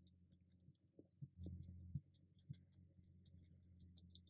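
Faint, quick wet clicks of a cat chewing and licking wet food, with a few soft low knocks between one and two seconds in, over a faint steady low hum.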